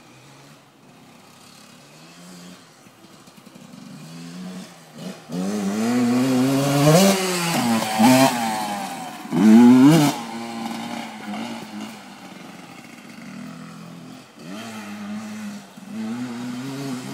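Dirt bike engine revving hard as the bike rides past, its pitch climbing and dropping again and again with the throttle and gear changes. It builds from faint to loudest about 7 and 10 seconds in, then fades as the bike pulls away.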